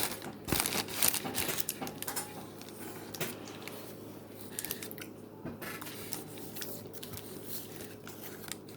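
Eating and food-handling sounds: crinkling of takeout wrappers and containers with scattered light clicks and taps, busiest in the first second and a half.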